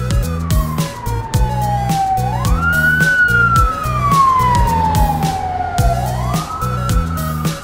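An ambulance siren wailing: one tone falls slowly and sweeps quickly back up, first about two and a half seconds in and again about six seconds in. It sounds over background music with a steady beat.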